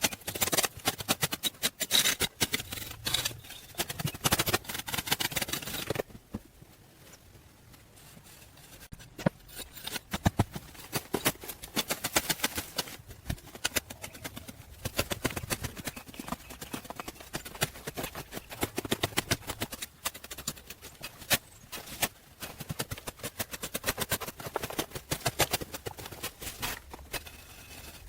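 Irregular knocks and scrapes of hand tools at work, quieter for a few seconds early on, then picking up again.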